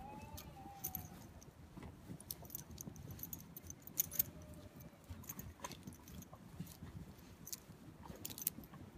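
A Komondor puppy's collar and lead hardware jingling in scattered small metallic clinks as it digs and noses in the snow, over an irregular low crunching of the snow under its paws and muzzle.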